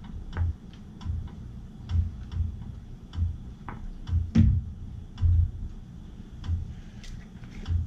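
Light clicks and clatter of plastic spice jars and caps being handled and opened, with irregular soft low thumps.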